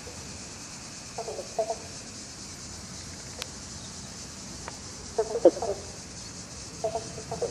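Frogs croaking in short bouts of rapid calls: one bout about a second in, a louder one about five seconds in, and another near the end.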